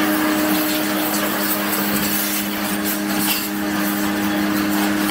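Agaro Royal 1800-watt electric pressure washer running steadily: its pump motor hums under the hiss of the high-pressure water jet spraying onto a motorcycle's engine and exhaust.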